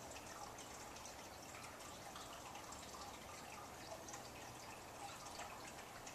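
Faint, steady background hiss with scattered soft ticks.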